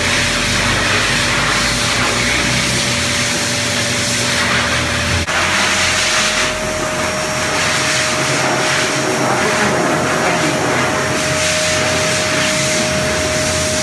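Pet grooming blow dryer blowing air through its hose: a loud, steady rush of air with a whining tone. About five seconds in the sound changes abruptly, its lower hum dropping out while the rush and whine carry on.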